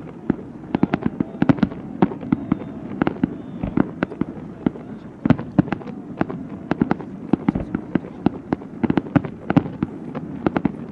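Fireworks display: a dense, irregular volley of sharp bangs and crackles, several a second, over a steady low rumble.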